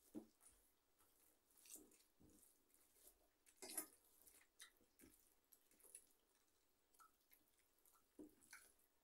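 Faint eating sounds: fingers mixing rice and dal on steel plates, and chewing. They come as scattered small clicks and squelches, the loudest a little under four seconds in.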